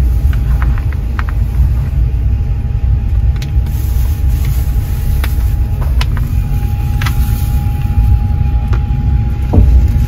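Passenger train carriage on the move, heard from inside: a steady low rumble with a faint steady whine and occasional light clicks and knocks.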